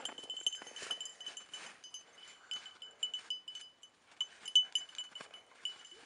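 A small bell on a running bird dog's collar jingling: a high ringing note struck again and again at an uneven pace with the dog's strides.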